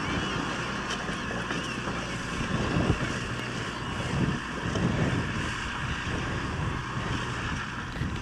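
Massey Ferguson 7616 tractor's diesel engine running steadily while ploughing, with wind gusting on the microphone about three and five seconds in.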